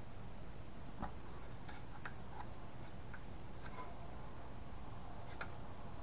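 Light metallic clicks and ticks of a screwdriver and small screws against a sheet-metal hard-drive cage, coming irregularly, about nine in all.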